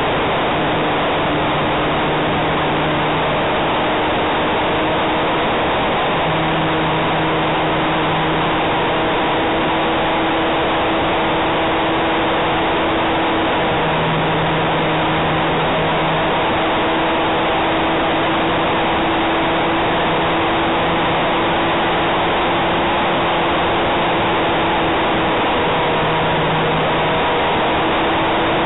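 RC model plane's motor and propeller, heard through its onboard camera: a loud, steady rush of air and propeller noise with a low hum that comes and goes as the throttle changes.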